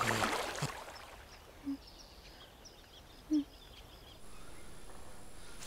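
Water splashing, dying away within the first second. Then a quiet outdoor ambience with faint bird chirps and two brief low calls.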